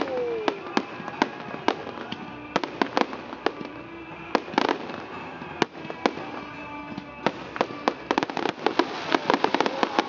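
Aerial fireworks display: a quick, irregular series of sharp bangs from shells bursting overhead, growing much denser over the last couple of seconds.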